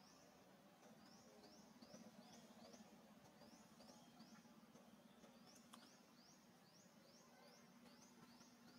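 Near silence: faint outdoor background with a short, high chirp falling in pitch, repeated steadily about three times a second over a low steady hum.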